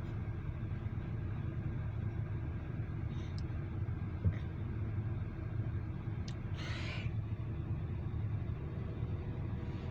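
Steady low engine rumble, with a single sharp click about four seconds in and a short hiss near seven seconds.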